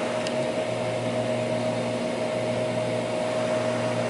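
Xerox Alto and its Diablo disk drive running with the disk pack spinning: a steady machine whir with a constant hum. There is a faint click about a quarter second in.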